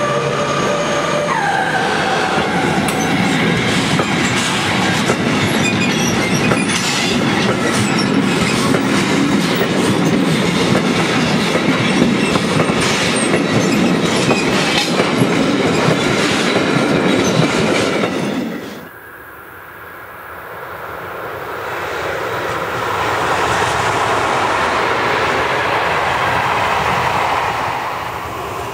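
A freight train of high-sided open wagons rolling past at close range, wheels clattering over the rail joints, as the electric locomotive's horn drops in pitch and stops about a second in. After a sudden cut, a Regio-Shuttle RS1 railcar approaches, its sound slowly rising.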